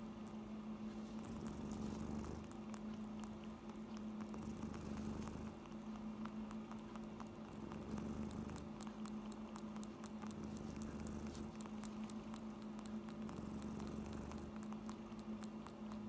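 Kitten purring steadily, the low rumble swelling and easing in slow cycles, with quick small clicks around the middle.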